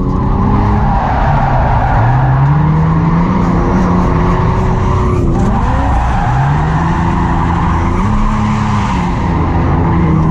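Nissan 350Z's VQ V6 revving up and dropping back again and again, with tyres skidding through a drift run.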